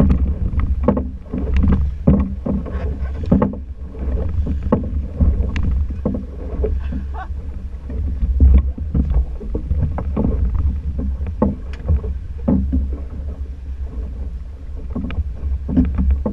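Small fibreglass boat rocking at sea: a steady low rumble, with irregular slaps and knocks of water against the hull.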